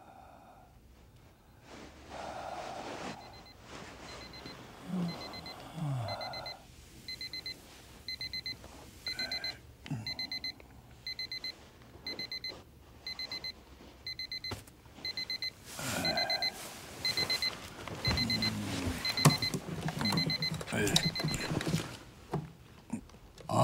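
Bedside alarm clock beeping in short bursts of rapid high pips, repeating a little faster than once a second, with a person's low voice sounds in between. The beeping stops near the end as a hand presses the clock's buttons.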